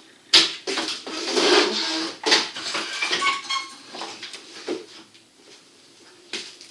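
Metal parts and tools being handled during work on a truck's transmission cooler line: sharp clicks and knocks with a stretch of scraping, then a few brief metallic rings.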